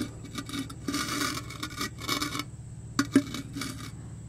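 Steel differential cover being worked into place against the axle housing flange. It scrapes and rubs in two short stretches, then gives two light metallic clicks about three seconds in.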